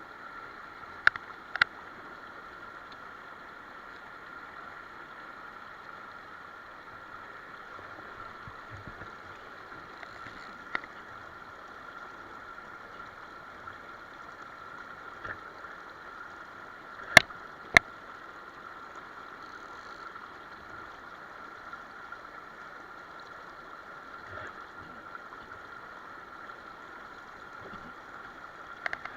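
Mountain stream flowing steadily over rocks. A few sharp clicks cut through it: two about a second in, one near the middle, and a louder pair about two-thirds of the way through.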